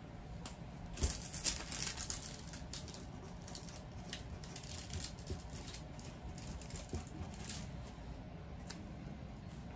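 Faint rustling and light clicking of small plastic bags of diamond painting drills being handled, with a few sharper ticks about a second in.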